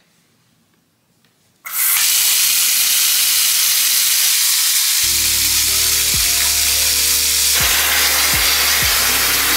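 Bath tap running full into a tub: a loud, steady rush of water that starts suddenly about two seconds in.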